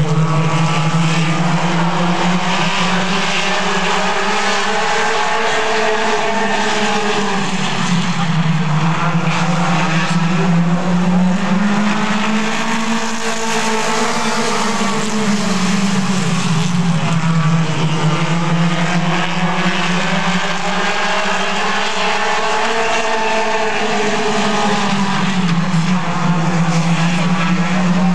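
Four-cylinder mini stock race cars running laps on a short oval. The engine note rises and falls in long, slow swells as the cars accelerate down the straights and lift into the turns.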